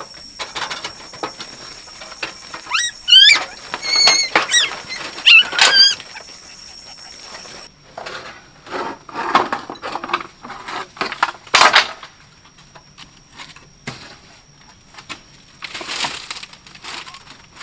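A small animal giving several high squeaky cries, sliding up and down in pitch, about three to six seconds in. Rustling and knocking follow, and a steady high whine runs underneath, dropping out for a few seconds midway.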